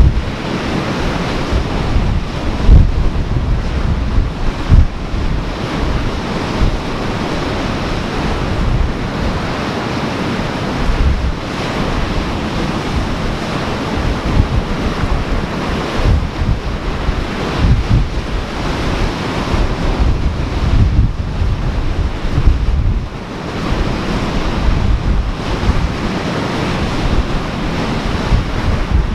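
Ocean surf washing steadily while wind buffets the microphone in irregular gusts.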